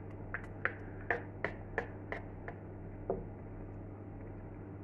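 A string of short lip smacks and mouth clicks from someone tasting a blended chickpea sauce, about eight in quick succession, stopping about three seconds in, over a steady low hum.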